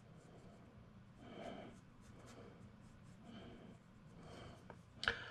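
Faint soft rubbing of a sponge-tipped applicator on sugar paper, in slow strokes about once a second, spreading pastel. A sharp click near the end.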